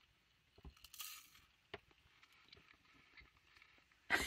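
Faint crunch of a bite into a Nutty Buddy peanut butter wafer bar about a second in, then quiet chewing with scattered small clicks, and a short louder sound near the end.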